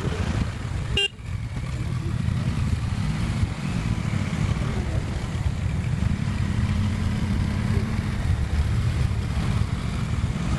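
A car driving along a hill road: steady low rumble of engine and road noise, with a brief click and dropout about a second in.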